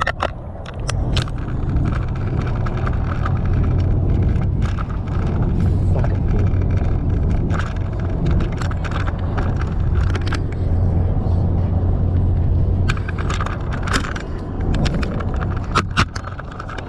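Truck driving, heard from inside the cab: a steady low rumble of engine and road noise, with scattered sharp clicks.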